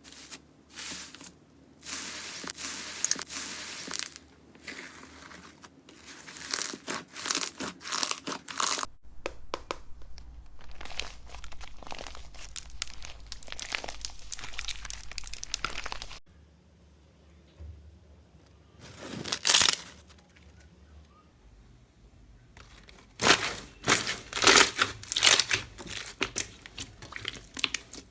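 Slime being squeezed, pressed and pulled, crackling and crunching in repeated bursts of fine pops. The handling goes quiet for several seconds past the middle, with one short burst, then resumes near the end.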